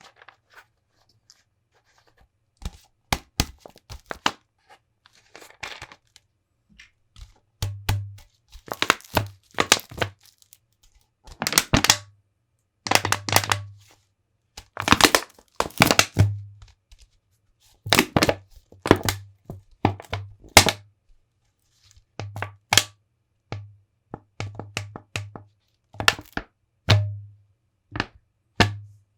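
Empty plastic bottle being squeezed and handled: a series of sharp crinkles, crackles and pops, some with a hollow thump, in irregular bursts.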